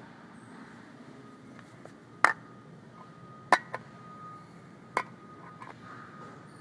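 A small metal can of cat food knocked against a hard tile floor three times: sharp clacks roughly a second and a half apart, the middle one with a small second tap just after it. A faint steady high hum runs underneath.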